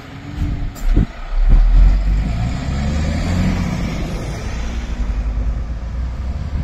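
Scania S-series articulated lorry pulling away close by. Its diesel engine runs with a deep, steady rumble that swells about a second and a half in, after a short thump about a second in.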